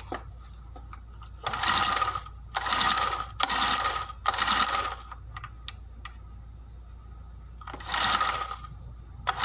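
A grass cutter's recoil starter is pulled four times in quick succession, then once more near the end, spinning the engine over for a spark check with the spark plug out and held against the engine. The engine does not fire.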